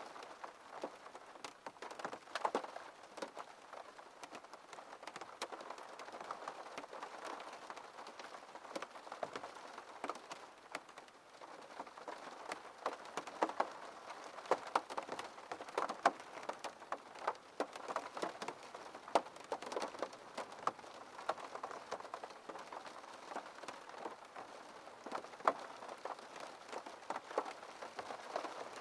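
Rain falling on a window pane: a steady wash of rain with many irregular drops tapping on the glass.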